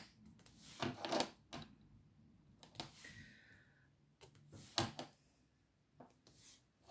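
Faint, scattered clicks and taps of a diamond-painting drill pen picking up resin drills from a plastic tray and pressing them onto the adhesive canvas, several light strikes a second or so apart.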